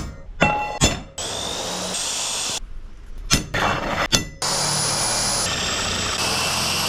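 Steel pieces clanking, then a handheld power tool spins up with a rising whine and runs for about a second and a half. After two more clanks it runs again steadily for the rest of the time.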